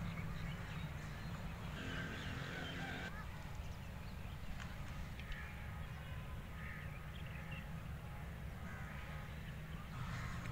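Scattered bird calls over a steady low rumble of distant traffic or wind.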